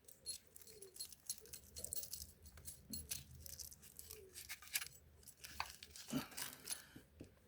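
Quiet hand-handling noise: scratchy rustles and small irregular clicks as a Velcro strap is pulled tight and pressed down around a metal U-lock.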